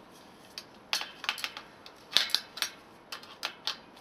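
Irregular metal clinks and taps of a 15 mm cone spanner working the nut on a bicycle's rear wheel axle, about a dozen short knocks in small clusters.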